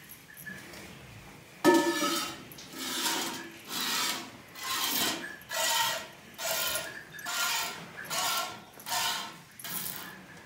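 Cow being milked by hand: streams of milk squirting into a steel pail in a steady rhythm, about one stroke a second, each with a hissing rasp and a slight metallic ring. The strokes begin about a second and a half in.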